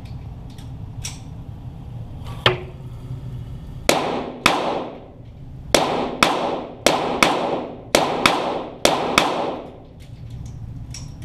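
.22 Walther GSP target pistol shots heard from near the targets: about eleven sharp reports, mostly in quick pairs, each trailing off in a long echo.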